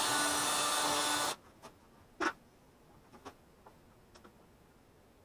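Power drill running steadily, boring out a hole with a larger bit. It stops about a second in, followed by a few faint knocks as the drill and work are handled.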